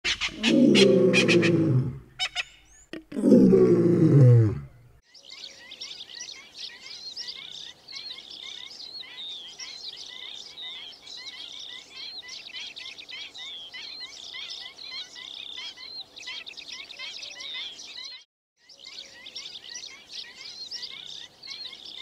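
Two deep roars, each falling in pitch, over the first five seconds. Then many quick, high chirping bird calls, near-continuous, with a brief break near the end.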